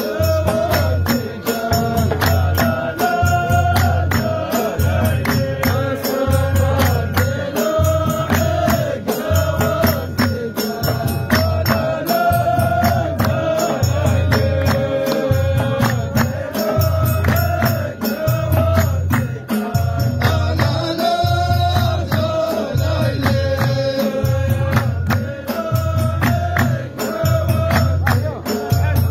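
Ahwach music: a row of men chanting in chorus over rhythmic hand-clapping, with a deep beat about once a second under the sung line.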